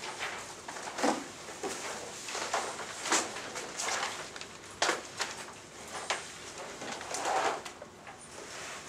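Scattered knocks, clicks and rustling of students working at their desks in a quiet classroom, with the sharpest knocks about 1, 3 and 5 seconds in.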